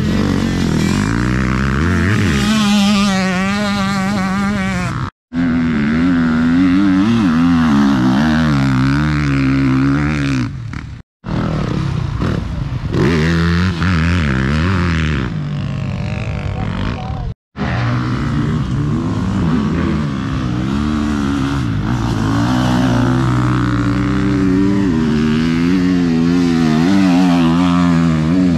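Enduro dirt bike engines revving up and down hard, pitch rising and falling with each throttle change and gear shift. The sound breaks off for a moment three times.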